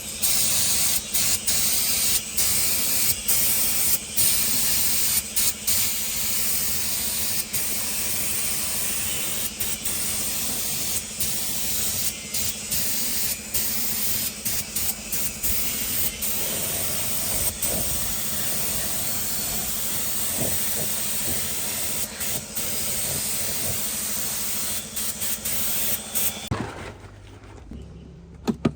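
A steady hiss with a low hum under it, broken by many brief pauses, stopping about 26 seconds in.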